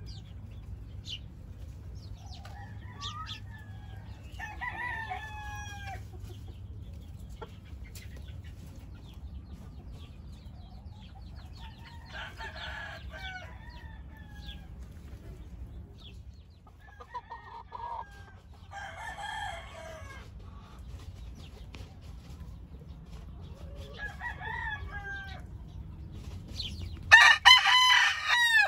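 Caged gamecock roosters crowing, one after another every few seconds, with one much louder, close crow near the end that is cut off. A steady low hum runs underneath.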